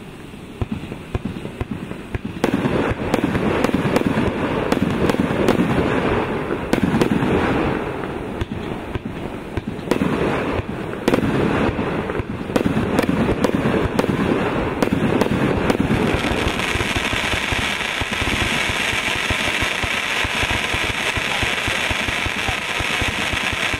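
A 160-shot 1.3G professional fireworks cake firing, shots going off in quick succession with heavy thumps of launches and bursts. About two-thirds of the way in, this gives way to a dense, steady crackling from the golden crackling palms and crackling comets.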